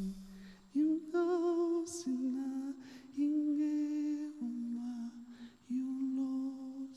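A man humming a slow wordless melody into a microphone: a string of held notes about a second each, the first sliding up about a second in, with a light vibrato.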